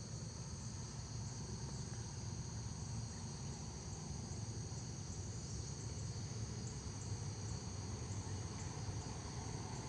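Steady high-pitched chorus of night insects trilling continuously, with a faint low rumble underneath.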